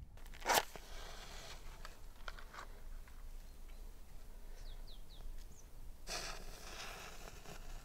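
A short, sharp rustling noise about half a second in, a few light clicks, and a longer rustle near the end, with a bird chirping three quick falling notes in the middle.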